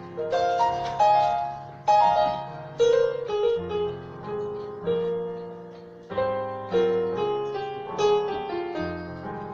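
Background piano music: chords and melody notes struck and left to fade, a new chord coming every second or so.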